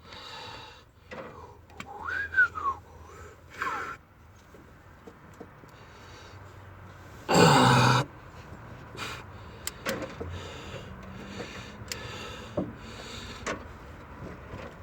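A man working a wrench on engine head bolts: a short whistle that rises and falls about two seconds in, a loud breathy exhale about halfway, and a few sharp light clicks of the tool toward the end.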